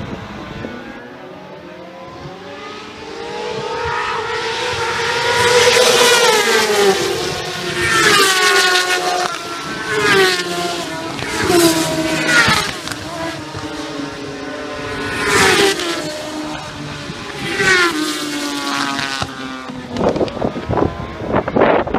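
Racing motorcycles accelerating hard and passing one after another, each engine note climbing and then dropping sharply several times over. The loudest passes come about 6, 8, 12 and 15 seconds in.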